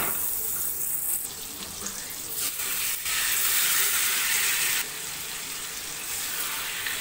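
Melted butter sizzling in a hot pan on a low flame. The sizzle grows louder about three seconds in as pieces of marinated chicken go into the pan, then eases a little before five seconds.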